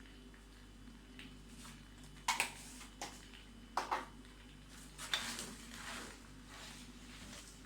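A spoon or utensil knocking against a cooking pot while spaghetti is stirred in its sauce: several sharp clinks, some in pairs, then a longer scraping swish.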